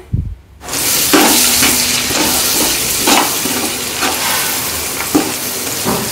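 Onions, green chillies and spices, with freshly added chilli powder, sizzling in hot oil in a metal biryani pot as a spatula stirs them, scraping the pot every second or so. The sizzle starts just under a second in.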